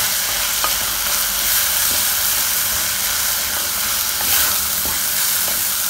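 Dried baby shrimps, onions and tomato sizzling in hot oil in a pan while a spatula stirs them through, with a few faint ticks from the stirring.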